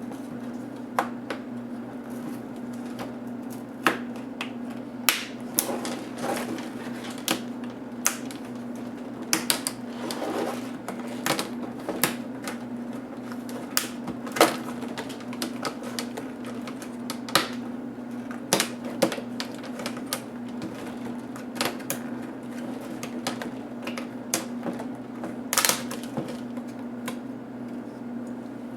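Irregular small clicks and taps of plastic and metal laptop parts being handled and pried apart during disassembly, a few sharper ones standing out, over a steady low hum.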